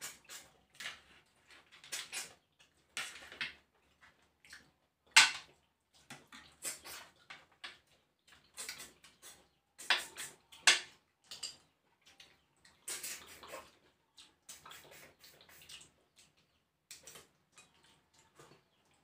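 People eating with their hands, making irregular wet sucking and slurping noises as they suck snail meat and coconut sauce from the shells, loudest about five seconds in and again around ten seconds. There are occasional clinks of a spoon on a plate.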